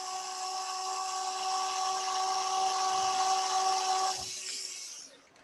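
Small electric drill running steadily with a high whine as it drills small screw holes into the top cup of a mini pepper grinder. It stops about four seconds in and winds down.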